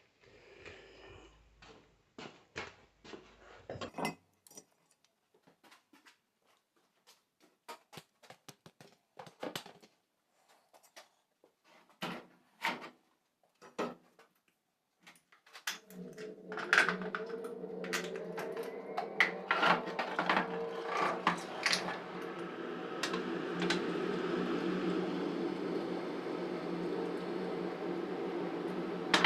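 Metal alternator parts clattering and knocking as they are handled and set down on a workbench. About sixteen seconds in, a steady machine hum starts and runs on under further clatter.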